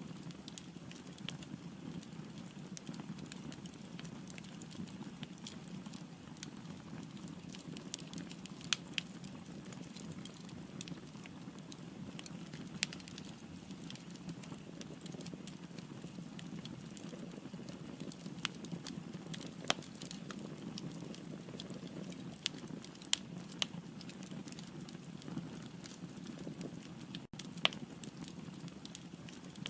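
Firewood burning in a fireplace: a steady low rumble of the fire with irregular sharp crackles and pops, and a momentary break in the sound near the end.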